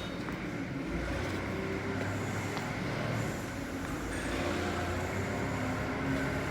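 A vehicle engine running steadily with a low, even hum, typical of machinery used to unload building materials.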